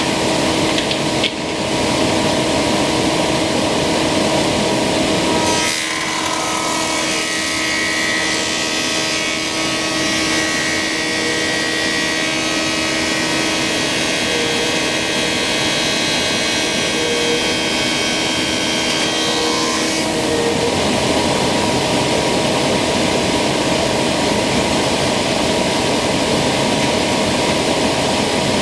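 Thickness planer running with its steady machine hum; from about six seconds in to about twenty seconds the Tersa-knife cutterhead planes two black walnut boards at a slow feed, a brighter continuous cutting sound, then it drops back to the free-running hum.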